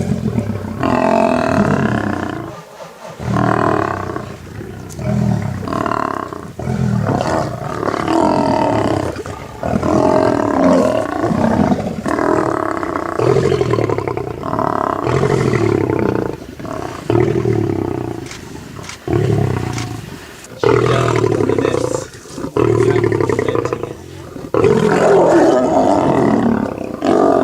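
Lions roaring and growling in a long series of calls, one every second or so, with brief pauses between them.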